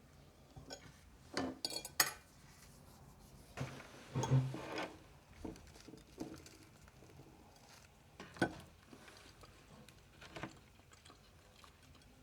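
Plates and cutlery clinking and knocking now and then as a meal is served, with a cluster of clinks about a second and a half in and a longer clatter around four seconds.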